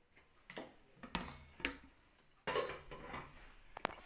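Metal spoon clinking and scraping against a steel mixing bowl while potato pieces are stirred: a few light clinks in the first two seconds, then a louder stretch of scraping and knocking with two sharp clicks near the end.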